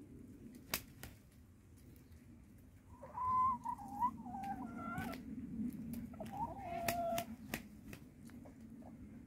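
Rooster calling twice: a longer call that steps between several pitches about three seconds in, then a shorter, lower call about a second later. Scattered sharp clicks over a steady low background hum.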